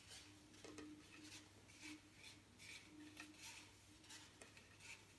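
Faint, irregular rubbing and swishing of fingers smoothing carbon-fibre cloth round a resin-coated fishing pole section, a few short strokes a second, over a low steady hum.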